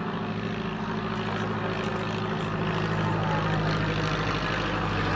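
Curtiss JN-4H Jenny biplane flying overhead: the propeller and Hispano-Suiza V8 engine give a steady drone that grows louder about halfway through.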